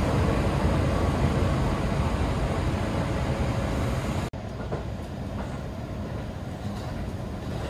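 Seibu Chichibu Line electric train running through a tunnel, heard from inside the carriage: a steady rumble of wheels and running noise. About four seconds in the noise drops suddenly to a quieter steady level.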